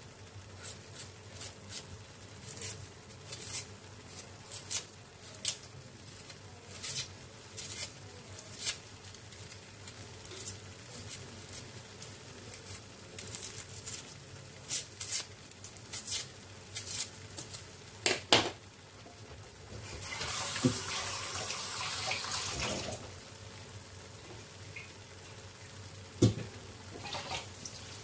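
Tomato sauce spluttering in a pan over low heat, with irregular sharp pops and crackles. About twenty seconds in comes a steady hiss lasting about three seconds.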